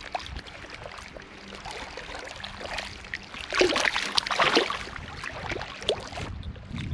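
Shallow river water splashing as a small catfish is unhooked and let go by hand at the water's edge. The splashing is loudest a little past the middle.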